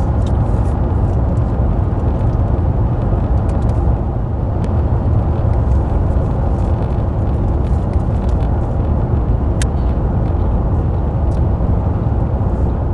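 Steady low rumble of a car heard from inside its cabin, with a few faint clicks.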